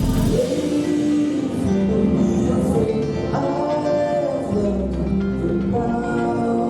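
Background music: a song with singing over instrumental accompaniment.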